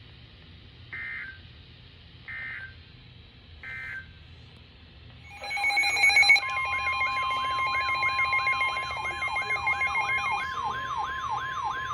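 Three short electronic beeps, then several emergency alert devices sound their alert tones at once from about five seconds in. A steady tone, a swooping tone repeating about twice a second and higher warbling tones overlap, announcing another snow squall warning.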